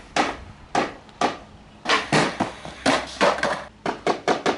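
A skateboard's wooden deck being knocked hard against a concrete floor, about a dozen sharp wooden knocks at an irregular pace with a short pause in the middle. Each knock echoes under the bandstand's roof.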